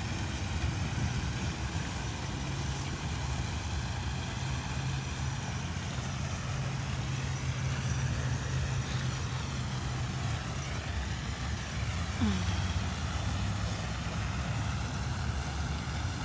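A steady low engine hum over constant outdoor background noise.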